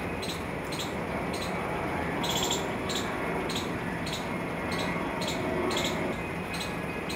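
A short high-pitched chirp repeating evenly, a little under twice a second, over a steady background hum.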